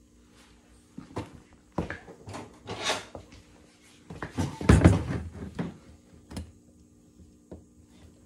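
Small metal parts clicking, tapping and scraping as the cover screws are put back into an old GM starter solenoid, a run of irregular knocks with a louder clatter about halfway through.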